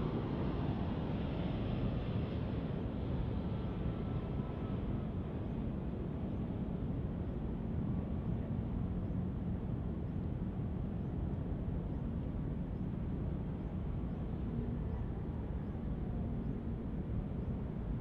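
Airbus A320 jet engines heard from a distance as the airliner comes in to land: a steady low rumble, with its higher hiss fading over the first few seconds.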